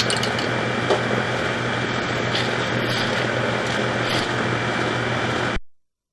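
Steady machine drone with a constant low hum and a light click about a second in; it cuts off suddenly near the end.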